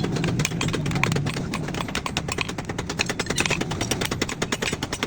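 Rapid, evenly spaced hammer strikes on hot steel, about nine blows a second, as a sickle is forged. The blows become more distinct and separate near the end.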